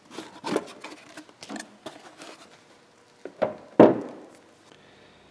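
Plastic underhood fuse box cover being unlatched and lifted off: a series of short plastic clicks and knocks, the loudest just before four seconds in.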